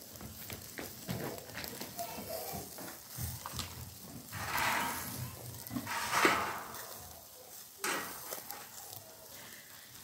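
Chicken and vegetable skewers sizzling over hot charcoal on a skewer grill, with two louder hissing swells about halfway through.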